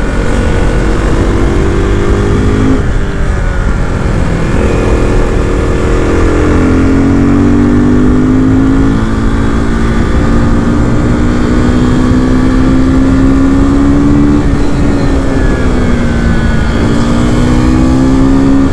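KTM RC390's single-cylinder engine running under way, its pitch climbing slowly and dropping back several times with the throttle. A steady low rush of wind and road noise runs underneath.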